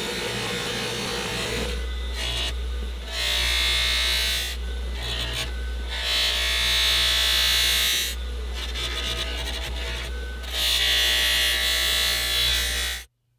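A bench-mounted abrasive wheel spinning with a steady motor hum while a steel sword blade is pressed against it. The grinding hiss swells three times as the blade is passed along the wheel. It cuts off suddenly near the end.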